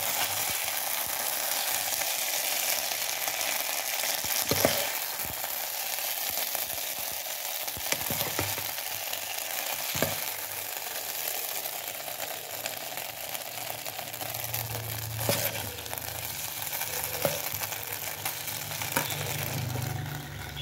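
Macaroni and beef sizzling as they stir-fry in a pan, with a wooden spatula scraping and knocking against the pan now and then.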